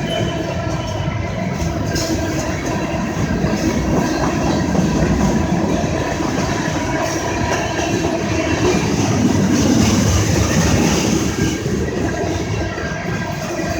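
Slow CSX freight train's cars rolling past close by: a steady, loud rumble of steel wheels on the rails.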